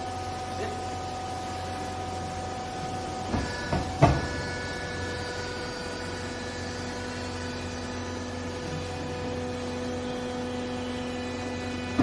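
Vertical hydraulic clothes baler running: its electric motor and hydraulic pump make a steady hum. A few sharp clunks come about three to four seconds in, after which the hum's tone changes as the press works the load of clothes.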